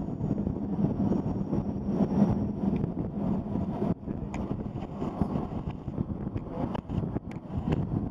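Rumble of a moving Bernina railway train, heard from an open carriage with wind buffeting the microphone, and a few sharp clicks in the second half.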